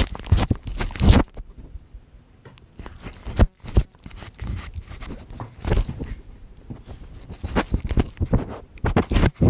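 A dog licking a treat-smeared mini camera right against its microphone: wet tongue slaps and scrapes on the housing. The licking comes thick at the start, thins out to a few sharp knocks through the middle, and picks up again in the second half.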